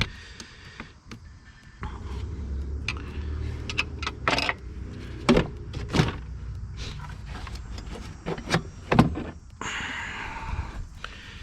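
Hand work on a car's plastic air intake: a screwdriver loosening the intake clamp and the airbox being worked free, with scattered clicks and knocks and a rubbing scrape near the end. A low steady hum runs underneath from about two seconds in.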